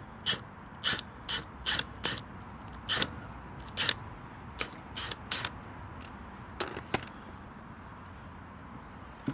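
Socket ratchet clicking in short strokes as it turns the threaded rod of a coil-spring compressor. The sharp clicks come irregularly, about one or two a second, and stop about seven seconds in.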